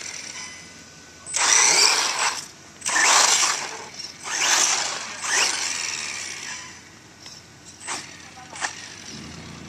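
Small nitro engine of a 1/10-scale RC monster truck revving in four throttle bursts of about a second each as the truck drives. Two sharp clicks come near the end.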